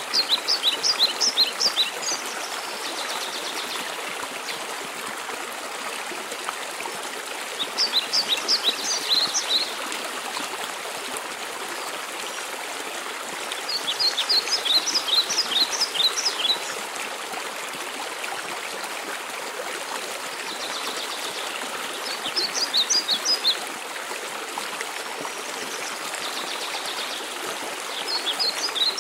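Steady rushing water of a mountain waterfall, with a songbird singing a short phrase of quick high notes about every six seconds, five times in all.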